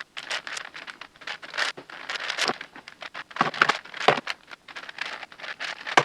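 Plastic clicking and clacking of a 10x10x10 Rubik's cube as its layers are turned by hand in quick, uneven runs, with a few sharper clacks.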